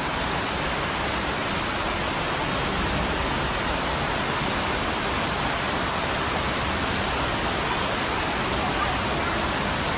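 Steady rush of running water, an underground stream or waterfall, heard as a constant even hiss.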